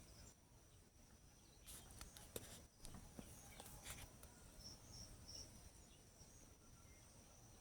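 Near silence: faint outdoor ambience with a steady high-pitched tone, a few soft clicks between about two and four seconds in, and three short high chirps about five seconds in.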